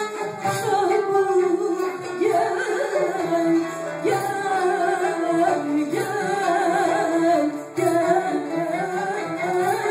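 Female soloist singing a Turkish classical (sanat) song with a live ensemble of kanun, oud and violin, the melody wavering and ornamented.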